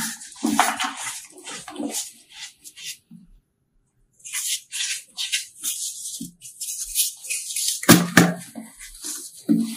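Soft chunks of a chalky powder block and loose pink rangoli powder being crushed and crumbled between the fingers: dry, crisp crunching and crackling in short bursts. There is a break of about a second roughly three seconds in, and the loudest crunch comes near the end.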